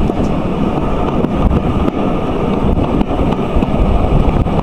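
Steady low rumble of a moving steam-hauled train carriage running along the track, with wind buffeting the microphone.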